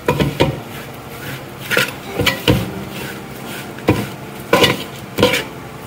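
Wooden spoon stirring a roasted coconut and spice mixture in a large aluminium pot, scraping and knocking against the metal in short, irregular strokes about every half second to a second.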